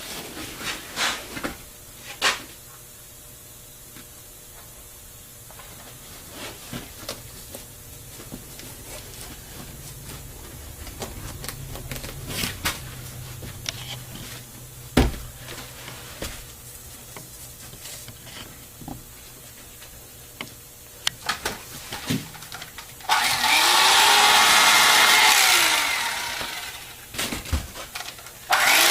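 Scattered handling knocks and taps, then about 23 seconds in a small electric power tool runs for about three seconds, its pitch rising as it spins up and falling as it winds down; it starts up again near the end.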